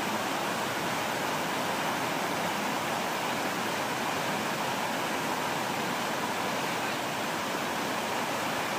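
Steady rushing of a fast-flowing, muddy river in flood, its churning current making an even, unbroken noise.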